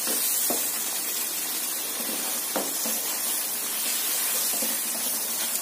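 Lemon pieces and chilli-oil masala sizzling in a pan over the flame while a wooden spatula stirs them: a steady hiss with a couple of soft scrapes.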